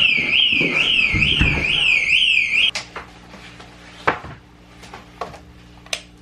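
Electronic alarm sounding a loud high warble that sweeps up and down about twice a second, then cuts off suddenly a little under three seconds in, leaving a low steady hum and a few sharp clicks.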